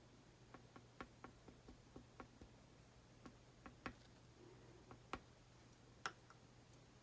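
Small, irregular taps of a round-tipped stylus dabbing acrylic paint onto a canvas panel, about fifteen faint ticks with a few sharper ones near the middle and end.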